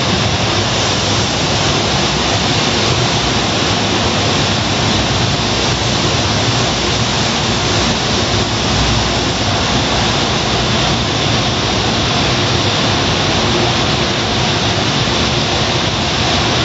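Car wash tunnel's overhead drying blowers running, a loud steady rush of air that does not change.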